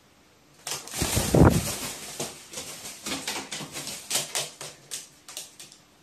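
A pet crow attacking a wild bird's feather: a loud scuffling flurry about a second in, then a run of irregular sharp taps and clatters on the hard tabletop, stopping shortly before the end.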